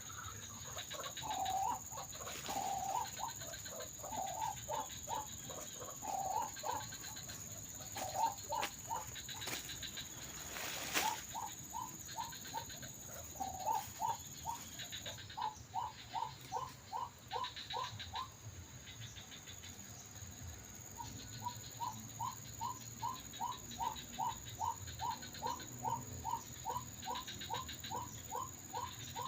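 White-breasted waterhen (ruak-ruak) calls, the kind played from an MP3 lure for trapping: long runs of short, repeated notes, about two or three a second, with a brief pause about two-thirds of the way through. A steady high whine runs underneath.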